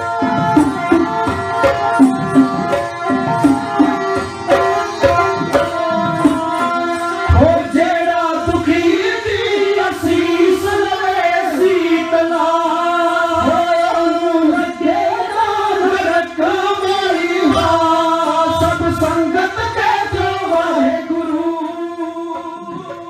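Dhadi jatha music: dhad hourglass drums beating a quick rhythm under the bowed melody of a sarangi. About seven seconds in, singing joins. The music fades out near the end.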